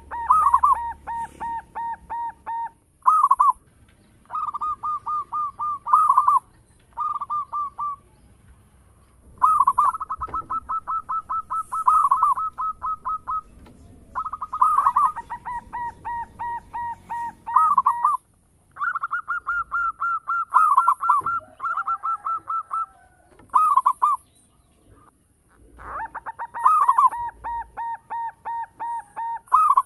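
Local Javanese zebra dove (perkutut) singing: about eight phrases of fast, staccato cooing notes, each phrase a rapid string of repeated notes, separated by short pauses.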